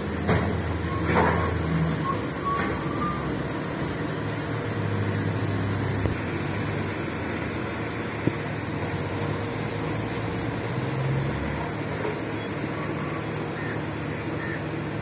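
Large mining shovel working: a steady machinery drone whose low hum swells and fades a few times as the loaded bucket is raised and swung, with a single sharp knock about eight seconds in.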